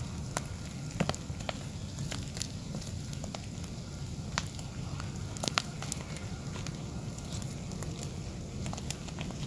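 Fire burning inside the hollow, lightning-split trunk of a tree: a steady low roar of flame drawing up the trunk, with scattered sharp crackles and pops of burning wood.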